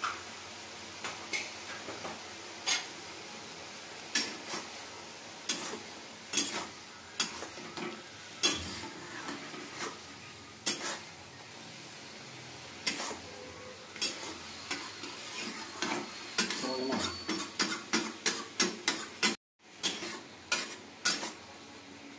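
Metal spatula scraping and clicking against a wok as mushrooms are stirred, over a steady sizzle of frying. The clicks come irregularly and grow more frequent near the end, and the sound cuts out for a moment shortly before the end.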